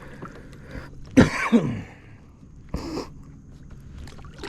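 A man coughing twice: a pitched cough that falls in pitch about a second in, then a shorter, harsher one near three seconds.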